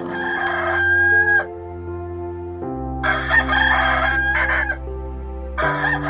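A rooster crowing three times, each crow a second and a half to two seconds long, the last starting near the end, over steady background music.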